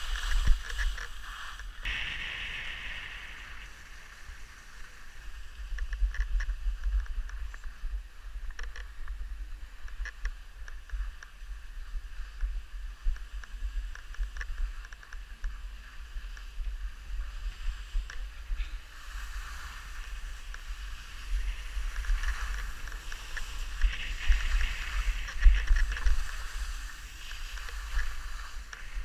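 Wind buffeting the camera's microphone during a downhill ski run, a gusty low rumble, with the hiss and scrape of skis sliding over snow that swells about two seconds in and again in the last third.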